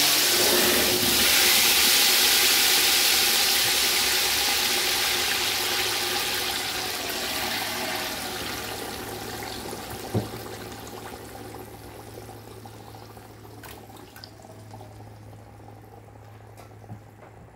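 Grated tomato pulp poured into a stainless steel pot of hot oil, hissing loudly the moment it lands and sizzling on while the hiss slowly dies away. A single knock sounds about ten seconds in.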